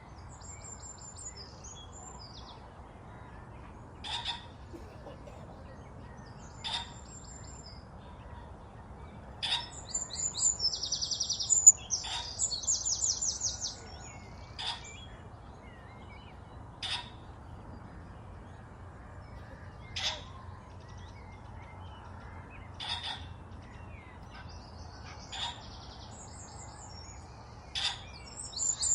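Birds calling and singing. A short, sharp note repeats about every two and a half seconds, and a louder buzzy, trilled song comes near the middle.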